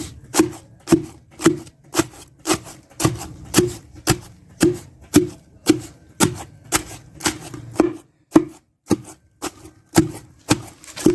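Pestle pounding pawpaw leaves and aloe vera in a mortar to crush out the juice, in steady strokes about two a second.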